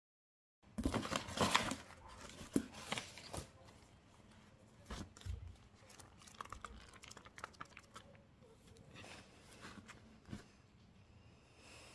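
Packaging being handled and unwrapped: crinkling and tearing that starts about a second in and is loudest for the first couple of seconds, then lighter scattered crinkles and small clicks.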